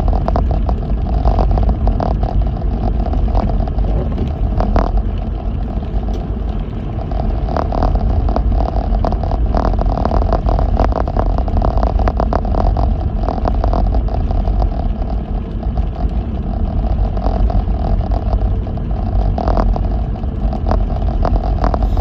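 Lexus GX470 SUV driving on a snow-covered road: a steady low rumble of tyres and engine, with frequent irregular clicks and clatters throughout.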